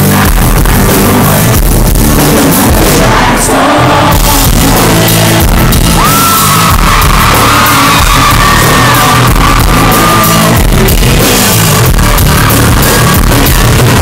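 Live band music played loud: a male singer sings over strummed acoustic guitar, with electric guitar and drums behind him. A long high note is held from about six seconds in to about ten and a half.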